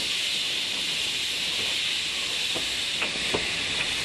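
C58 steam locomotive hissing steadily as it pulls out, steam venting from its cylinder drain cocks. A few faint short knocks come through near the end.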